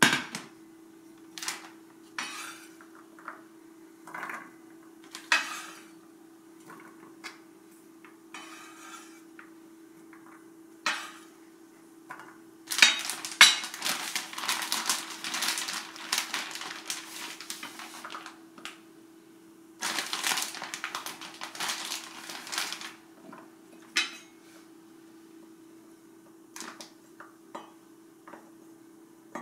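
Kitchen cooking sounds over a steady low hum: an enameled cast iron skillet knocks down onto a glass cooktop at the start, then scattered clatters and knocks of food and utensils, with two longer stretches of dense crackling in the middle. A few sharp knife chops on a wooden cutting board come near the end.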